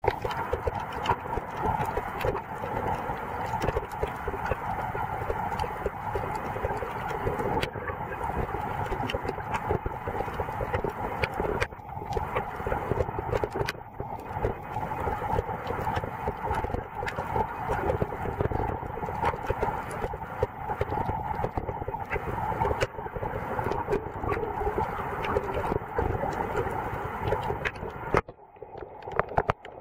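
Underwater sound picked up by a camera held below the surface while snorkeling: a steady hiss thick with fast clicks and crackles. It drops away sharply near the end.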